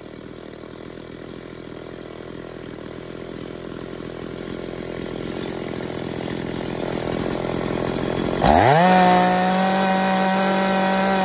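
Two-stroke chainsaw idling, then revved to full throttle about eight seconds in. Its pitch sweeps up quickly and holds steady near 12,000 RPM while the high-speed carburetor mixture is being set.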